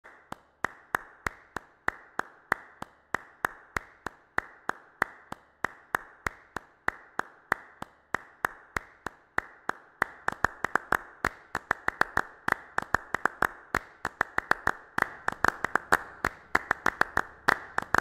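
Sharp percussive hits, like claps, in a steady beat of about three a second that grows busier about halfway through, with extra hits in between: the beat of a song's intro.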